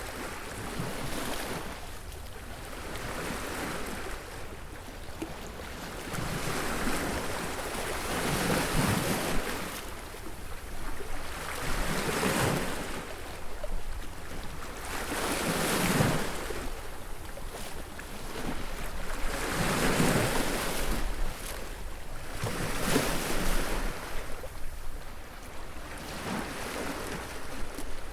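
Sea waves breaking on a beach, the surf swelling and fading in a rolling rhythm of a surge every four seconds or so, with some wind on the microphone.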